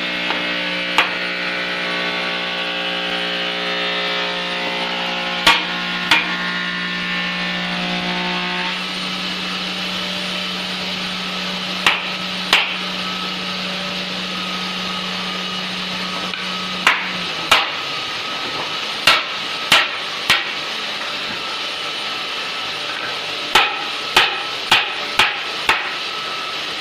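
Hammer blows knocking on wood, some single and some in quick runs of up to five strokes, over a constant background noise. A steady machine hum stops about two-thirds of the way through.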